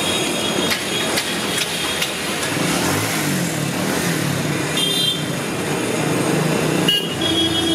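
Street traffic noise: motor vehicle engines running and passing, with a vehicle horn starting to sound near the end.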